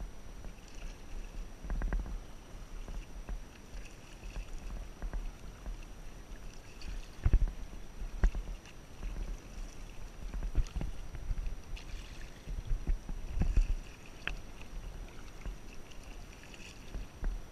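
Kayak paddling: the paddle blades dipping and splashing in the water stroke after stroke, with several sharp knocks on the kayak hull, over a steady low rumble.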